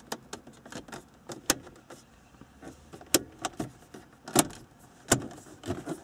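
Plastic dashboard trim bezel being pressed back into place, its retaining clips snapping in: a string of sharp plastic clicks and taps, four of them louder than the rest.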